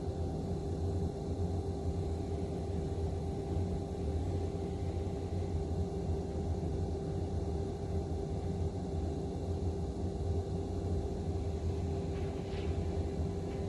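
Distant heavy machinery running: a steady low rumble with a constant hum, without distinct crashes or impacts.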